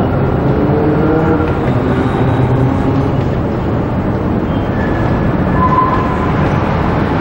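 Melbourne suburban electric train running along curved track, a steady rumble of wheels on rails with faint whining tones drifting above it.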